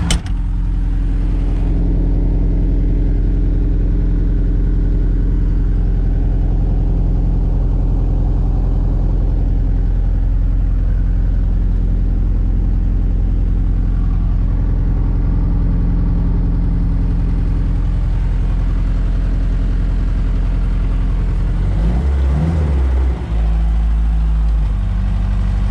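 ASV RT-60 skid steer's diesel engine running steadily. About 22 seconds in, the engine note wavers and dips for a moment, then settles back to a steady run.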